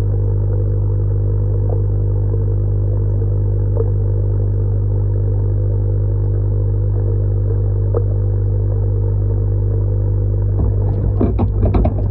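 Electric air pump humming steadily, a low mains hum with a stack of even overtones. Near the end, irregular knocking and clattering come in over the hum.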